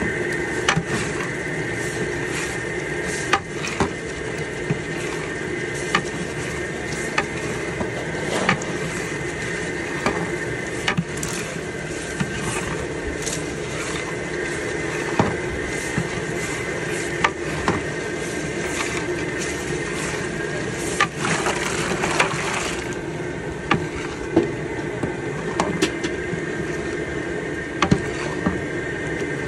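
Long metal ladle stirring thick gravy in a large aluminium cooking pot, scraping and knocking against the pot wall at irregular moments over a steady hiss and hum.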